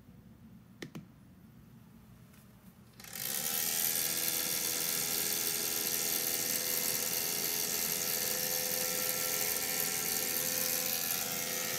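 PetNet Feeder V2's motor turning the paddle arm in the food hopper on a feed cycle: a steady mechanical whir that starts about three seconds in. A single short click comes about a second in.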